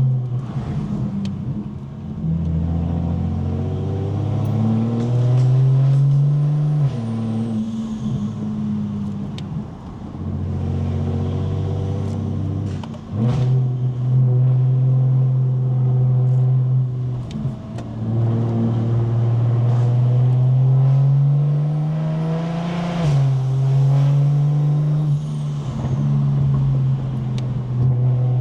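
BMW 335is N54 inline-six with a single-turbo conversion, pulling hard under acceleration. The engine note climbs steadily and then drops sharply at each quick dual-clutch upshift, several times over.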